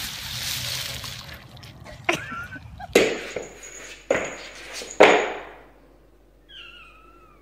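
Ice cubes crunching and shifting as a dog digs its head into a pile of them, followed by a few sharp knocks. Near the end a cat gives a high, drawn-out meow that falls in pitch.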